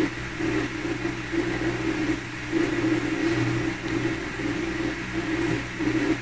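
A steady machine-like hum, such as a small motor or fan, with a low drone that swells and fades every half second or so.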